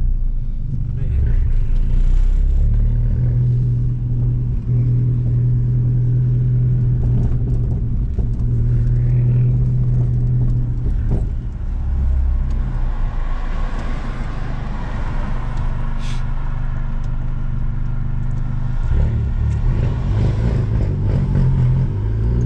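Fiat Abarth 500's 1.4-litre turbocharged four-cylinder engine running while the car is driven, a steady low drone that drops away briefly a few times as gears are changed.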